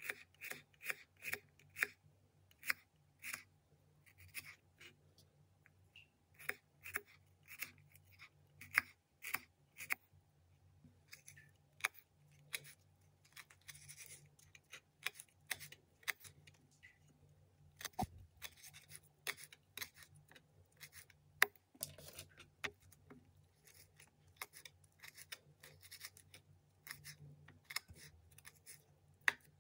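Kitchen knife slicing garlic, shallots and red chillies on a cutting board: quick, irregular taps of the blade on the board, several a second, over a faint steady low hum.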